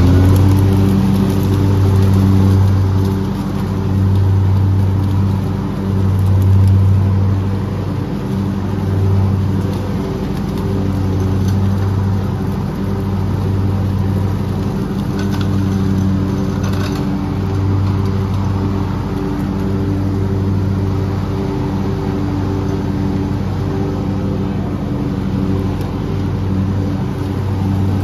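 A small gasoline engine of outdoor yard equipment running steadily. Its level swells and fades every couple of seconds at first, then evens out.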